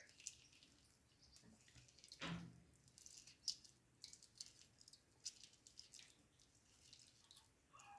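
Faint drips and small wet sounds of a lemon being squeezed by hand, its juice dripping into a glass of warm water. It is mostly near silence, with a slightly louder brief sound about two seconds in.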